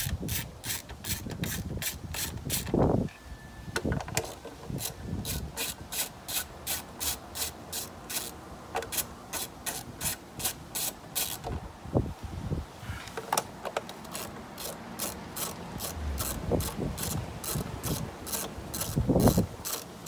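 Socket ratchet wrench turning fasteners, its pawl clicking in quick runs of about four clicks a second, with short pauses and a few dull knocks of handling between runs.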